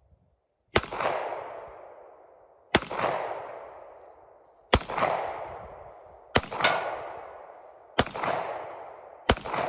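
A run of single gunshots, about six, spaced one and a half to two seconds apart with two fired close together in the middle. Each shot is followed by a long fading echo.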